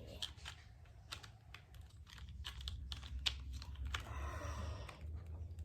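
Hard plastic clicking and tapping as a toy dinosaur figure is fitted into its plastic capture-gear accessory, with a short rustling scrape about four seconds in.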